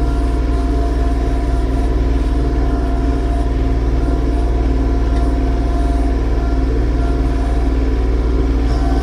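Yanmar YT235 compact tractor's diesel engine running steadily at a constant speed.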